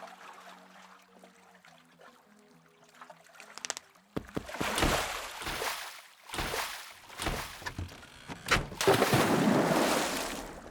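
Quiet music with low held notes, then about four seconds in, loud surges of rushing, splashing water come in several waves, the longest and loudest near the end.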